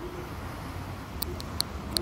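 City street ambience under an elevated roadway: a steady low rumble of traffic, with three short, sharp high clicks in the second half.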